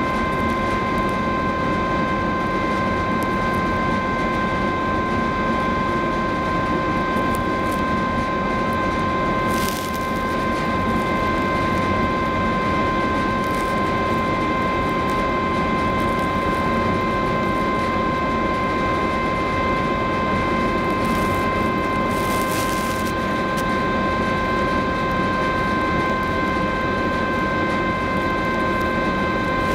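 Cruise ferry Silja Symphony's engines and ventilation machinery running in a steady drone: a low rumble with several steady whining tones on top.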